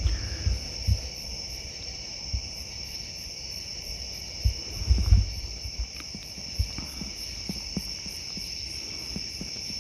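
Night insects, crickets, trilling steadily, with a higher chirp pulsing about three times a second. A few soft low thumps come through, most around the middle.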